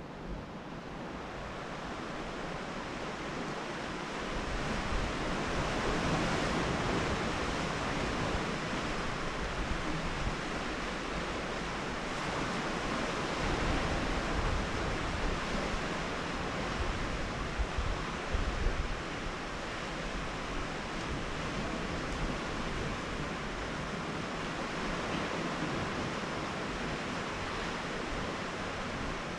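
Sea surf washing against a rocky shore, rising and falling in slow swells, with wind buffeting the microphone in gusts, strongest about two-thirds of the way through.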